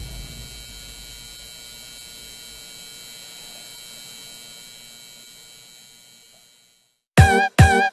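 Electronic intro sound effect: a steady electric hum made of many fixed tones, slowly fading out over about six seconds. Near the end, music starts with short, loud repeated stabs.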